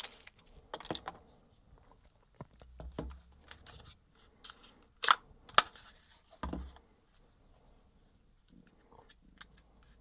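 Handling noise from small plastic action-camera parts and a cable: scattered clicks and taps, the sharpest pair about five seconds in, and a dull knock at about six and a half seconds.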